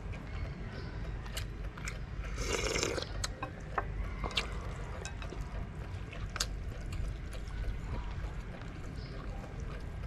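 Someone eating instant noodles from a bowl with chopsticks and a wooden spoon: a short slurp about two and a half seconds in, and scattered light clicks of the utensils, over a steady low rumble.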